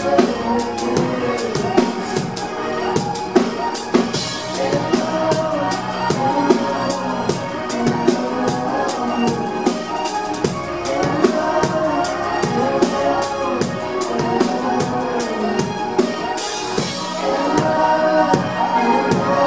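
Live pop band playing: a steady drum beat under keyboards, with a woman singing into a microphone.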